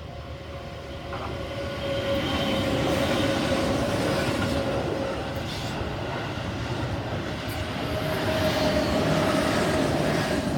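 Keihan 8000 series electric train passing over a level crossing: rail rumble and wheel clatter that build about two seconds in, ease a little in the middle and swell again near the end, with a few sharp wheel clicks.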